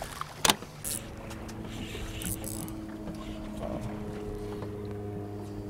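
Outboard motor idling with a steady, even hum. A sharp knock comes about half a second in.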